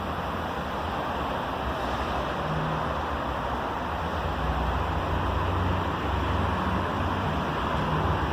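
Steady background noise with a low hum, a little louder in the second half. No single source stands out.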